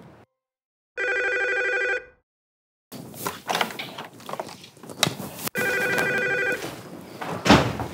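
Telephone ringing: two electronic rings of about a second each, a few seconds apart, with a few knocks and a thud near the end.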